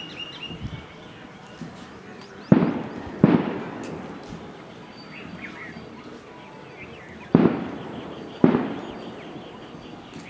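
Four sharp bangs, two close together a few seconds in and two more about five seconds later, each ringing out for about a second. Birds call faintly between them.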